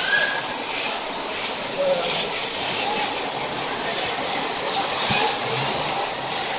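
A pack of rear-wheel-drive radio-controlled drift cars sliding through the corners, their electric drivetrains and hard tyres on the smooth track floor making a steady hiss.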